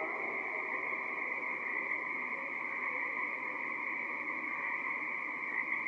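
A dense chorus of Pacific tree frogs, many calling at once so the calls merge into one steady sound.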